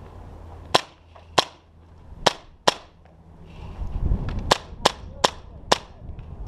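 Airsoft gun fired in single shots: eight sharp pops at irregular spacing, in two groups of four.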